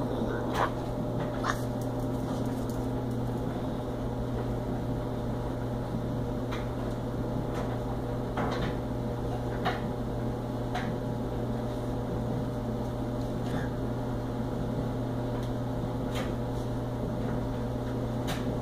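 Steady low mechanical hum, with about a dozen scattered light ticks and taps as a small Chorkie dog paws at its fleece mat and rope toy on a tiled floor.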